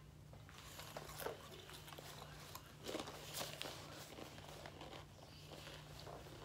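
Faint, irregular crinkling and crunching from a chip bag tipped up to the mouth and chips being chewed, with a few louder crunches about a second in and around the middle, over a low steady hum.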